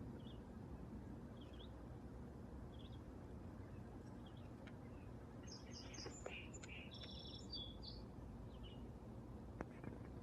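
Faint bird chirps: a short call repeated about every second and a half, then a quicker run of higher chirps from about five to eight seconds in, over a steady low background rumble.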